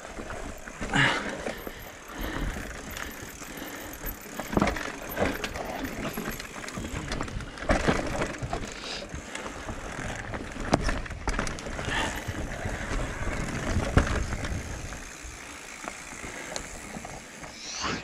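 Haibike AllMtn 3.5 e-mountain bike riding over a rough, rooty and rocky trail: tyres rolling, with repeated knocks and rattles of the bike over roots and stones. There is a short rising squeal near the end.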